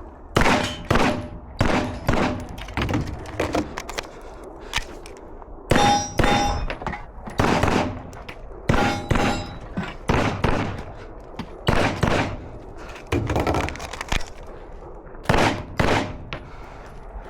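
Gunshots fired mostly in quick pairs about half a second apart, some twenty in all, with steel targets clanging and ringing after several of the hits.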